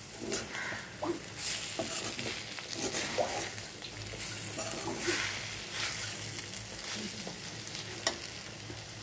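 Scrambled egg and onion masala frying in a metal kadai while a metal spoon stirs and scrapes it around the pan in irregular strokes, over a steady sizzle. A single sharp tap of the spoon on the pan comes near the end.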